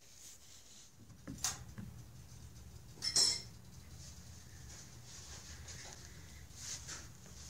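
A few light knocks and clatters on a hardwood floor as a cat moves about a small plastic toy, the loudest about three seconds in, over a steady low hum.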